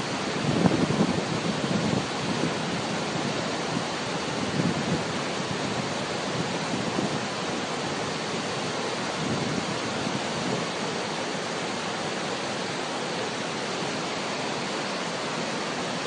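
A tall waterfall plunging onto rocks: a steady, loud rush of falling water, with uneven low swells during the first few seconds.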